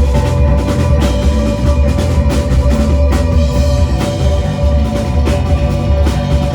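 Live rock band playing loud, with a drum kit, heavy bass and one note held steady throughout.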